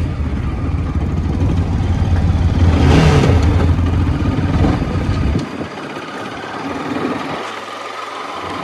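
Bajaj Pulsar RS200 motorcycle riding along at speed, its engine running under a heavy low rumble on the microphone; the low rumble cuts off suddenly about five and a half seconds in, leaving a quieter steady run.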